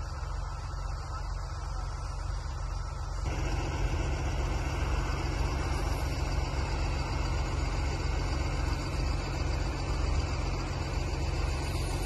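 Diesel engine running steadily. About three seconds in, the sound becomes louder and fuller.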